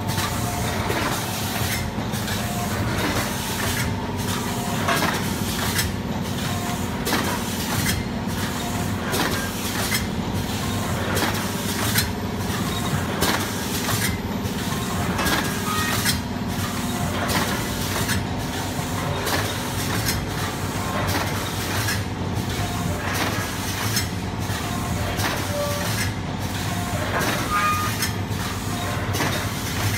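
Coffee bag packing machine running through its cycle: a steady machine hum with sharp clacks repeating about once a second.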